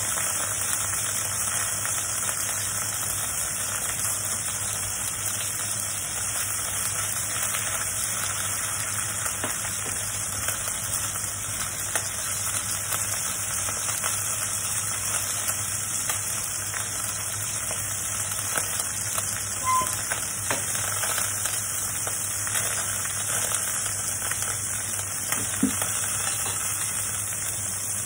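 Pork pieces sizzling in hot oil in a stainless steel wok, with wooden chopsticks scraping and tapping against the pan as they are turned, over a steady low hum.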